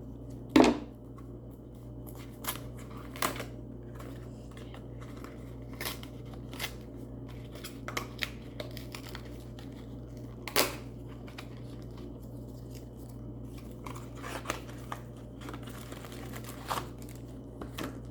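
Plastic packaging being handled: sporadic crinkling and rustling with sharper snaps here and there, the loudest about half a second in and again around the middle.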